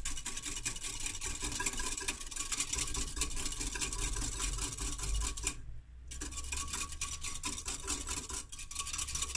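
Wire whisk stirring milk in a glass Pyrex measuring jug, its wires clicking rapidly against the glass, to dissolve sugar and instant yeast. The whisking stops briefly a little past halfway, then carries on.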